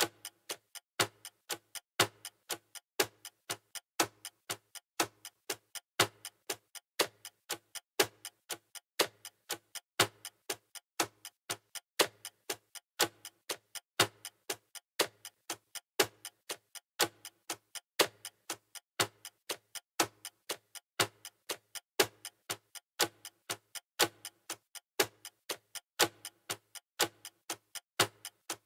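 Clock-ticking sound effect for a countdown timer: evenly spaced sharp ticks, a louder one about every second with quieter ones between.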